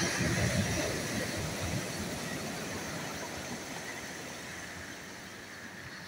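Sea waves breaking on a pebble beach: a wave crashes into surf near the start and its wash runs up the shore, the rushing noise fading slowly before the next wave begins to build.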